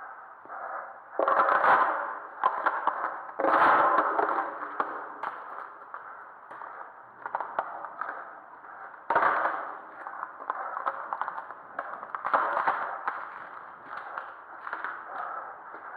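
A series of sudden bangs and knocks echoing in a concrete storm-drain tunnel. The four loudest come about a second in, about three and a half seconds in, about nine seconds in and about twelve seconds in, with many smaller clicks and knocks between them.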